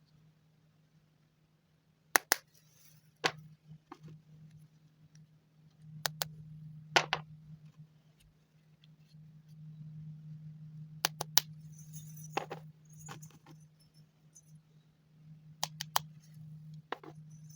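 Hard plastic animal figurines clicking and knocking as they are handled and set down, with sharp taps at irregular intervals, some in quick pairs, over a faint steady low hum.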